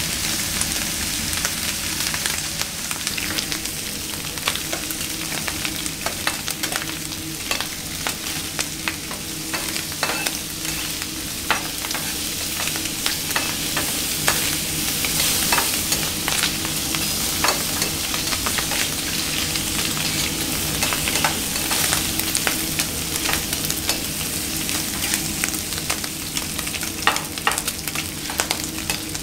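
Bacon strips sizzling on a hot flat-top griddle: a steady hiss with many small crackles and pops, and now and then a metal spatula scraping the plate as the strips are turned. A steady low hum runs underneath.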